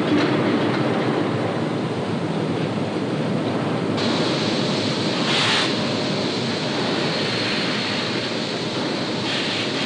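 Steady, dense industrial noise of a steel rolling mill at work. The noise turns brighter and hissier about four seconds in, with a short louder rush about halfway through.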